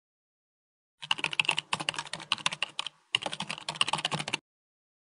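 Computer keyboard typing: rapid key clicks starting about a second in, with a brief pause just before three seconds, then stopping abruptly.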